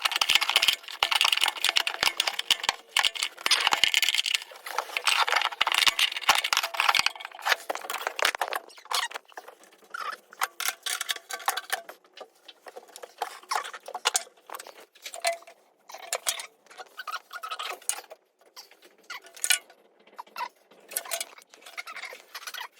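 Clicking, scraping and rattling of shower trim pieces and wall boards being handled and test-fitted. Dense for the first eight seconds or so, then sparser, separate clicks and knocks.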